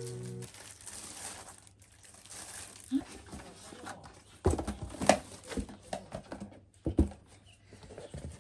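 Plastic packaging crinkling and rustling as parcels are unpacked, with a few sharper knocks of items being handled, the loudest about five and seven seconds in.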